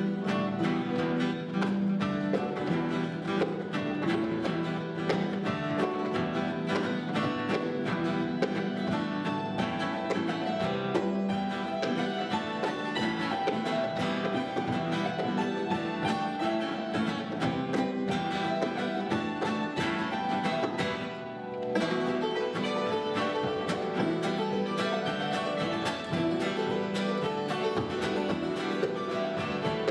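Traditional Irish tune played live by a Celtic string ensemble: strummed acoustic guitar with fiddle, hammered dulcimer and harp. There is a brief lull about two-thirds of the way through.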